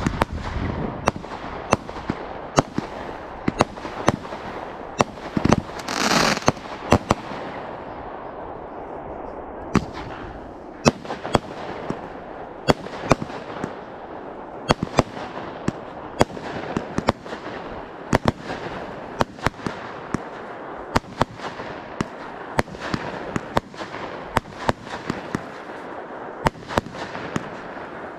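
Fireworks display: a steady run of sharp bangs, about one every second, over a continuous crackle, with a louder hissing burst about six seconds in.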